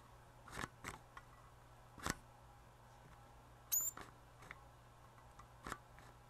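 Vintage Snap-on MT241A timing light's power switch clicking as it is pressed several times. Once, a bit over halfway through, the light powers up with a short high-pitched squeal that drops in pitch and cuts off; the other presses bring nothing, the sign of an intermittent power switch.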